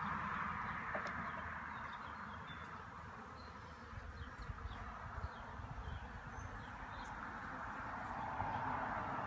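Honeybees buzzing in a steady hum around an open hive full of frames from a nuc, fading a little mid-way and swelling again near the end. A low rumble runs under it, with a few faint high chirps.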